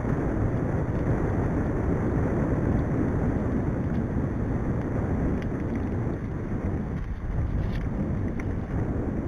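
Wind rushing over the microphone of a camera on a moving mountain bike, mixed with the tyres rolling on a tarmac lane: a steady rushing noise, with a few faint clicks about two-thirds of the way through.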